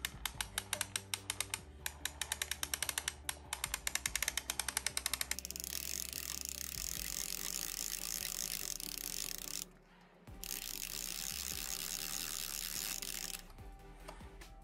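Rewind crank of a Reto3D film camera being turned by hand to wind the finished roll back into its cassette: fast ratcheting clicks for about five seconds, then a continuous rasp with a short break about ten seconds in.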